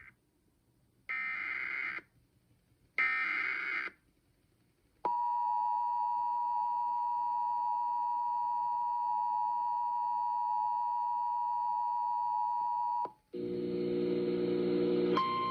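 Emergency Alert System SAME header data bursts, two harsh digital bursts about a second long and a second apart, followed by the two-tone EAS attention signal held steady for about eight seconds that announces a new alert. After it cuts off, a sustained chord of lower tones starts, joined near the end by a single steady higher tone.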